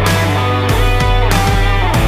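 Background music: distorted rock guitar over a heavy bass and drums, with a steady driving beat.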